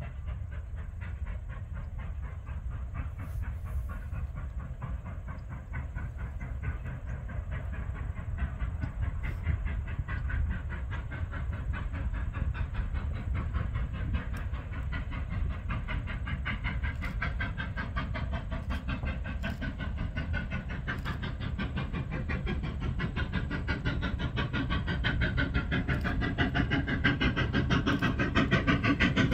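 Steam train running on the rails: a steady low rumble with a rapid, even rhythmic beat that grows louder over the last several seconds.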